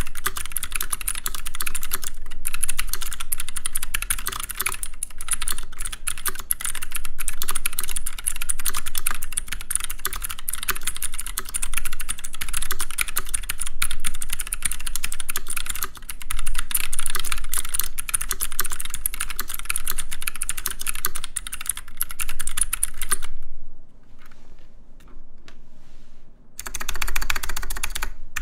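Rapid, continuous clacking of computer keyboard keys being typed on fast and hard. About 23 seconds in the typing nearly stops for roughly three seconds, leaving only a few isolated clicks, then resumes.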